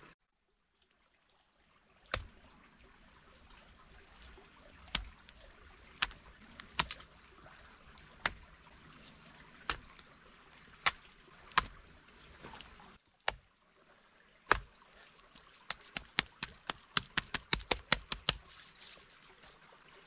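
Stream trickling steadily, with sharp taps and clicks every second or so from hands working at stone and clay, then a quick run of taps a few seconds before the end.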